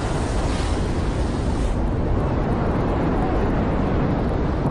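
Loud, steady rushing roar of a bushfire and strong wind, with wind rumbling on the microphone; a high hiss in the noise drops away about two seconds in.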